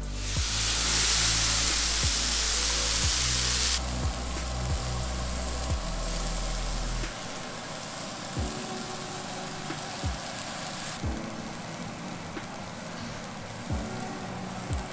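Raw A5 wagyu ribeye steaks sizzling on a hot cast iron griddle, the sizzle loudest in the first few seconds as the meat goes down, then steady and quieter. Background music with a steady beat plays under it.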